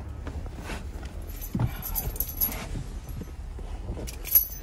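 Rings of metal try-out keys jingling and clinking as they are handled, with rustling and knocks from someone settling into a pickup's driver seat. The sharpest clink comes a little after four seconds in.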